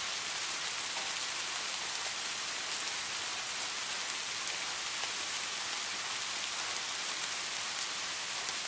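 Steady rain falling: an even hiss with faint scattered drop ticks and no thunder.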